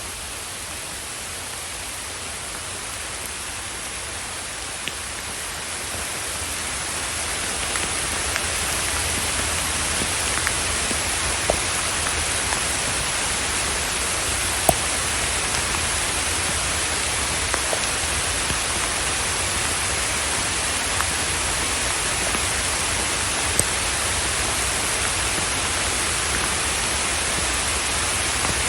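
Steady rain, an even hiss that grows louder about six to eight seconds in, with a few sharp drip ticks standing out here and there.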